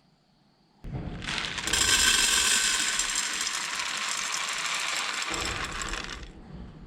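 A sample of dry soybeans rattling as it runs into and through a grain moisture tester. It starts about a second in, goes on for about five seconds, and fades near the end.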